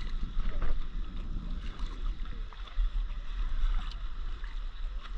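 Wind noise on the microphone, low and uneven, over water lapping against a stand-up paddleboard.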